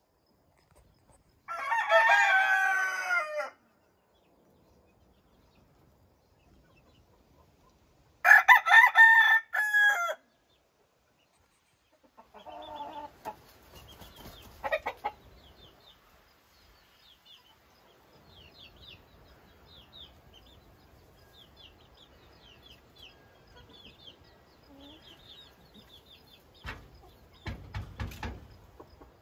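JJ Kelso game rooster crowing twice, each crow about two seconds long, followed by a few softer calls. Small birds chirp faintly in the background, and a few low thumps come near the end.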